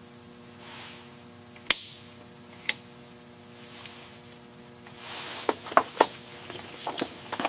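Sharp light taps or clicks: two single ones about a second apart near the start, then a quick run of them in the last couple of seconds, over a steady low hum.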